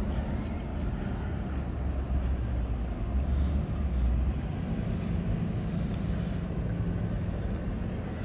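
A low engine rumble, growing louder in the middle and then easing, over steady outdoor city noise.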